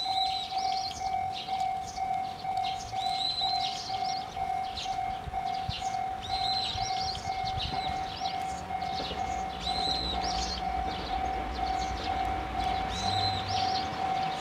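A railway level-crossing alarm ringing steadily with a pulsing tone, while a bird repeats the same short song phrase every few seconds. From about the middle on, the low engine rumble of an approaching KiHa 201 series diesel railcar grows louder beneath them.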